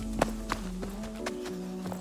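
Background pop music between sung lines: sustained notes that step in pitch, with sharp percussive hits.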